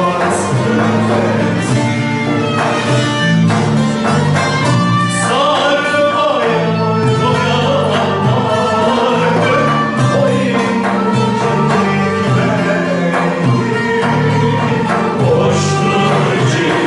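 A Turkish folk ensemble of bağlamas (long-necked saz lutes) and an end-blown flute playing a song together, with a man's voice singing a gliding melodic line over them.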